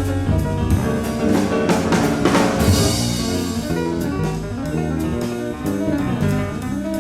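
Live jazz trio playing: piano and double bass over drums, with a busy swell of drums and cymbals around two seconds in.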